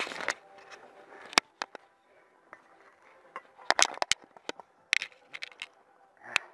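A scatter of sharp, irregular clicks and snaps, a quick cluster of them about four seconds in.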